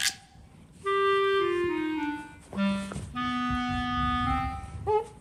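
Background music: a woodwind melody of a few held notes, the first ones stepping downward.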